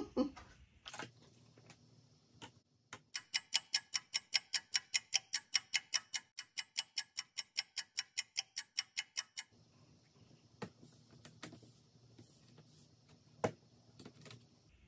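An ink pad dabbed rapidly onto clear stamps on a plastic stamping plate: a fast even run of light taps, about five a second, lasting some six seconds. A few scattered plastic knocks follow as the acrylic plates are handled.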